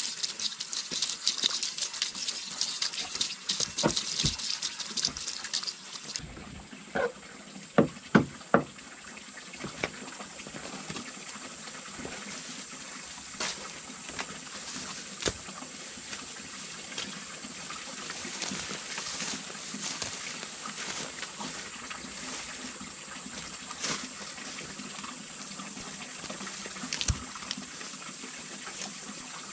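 Water trickling and splashing, with a few sharp knocks a little past the quarter mark.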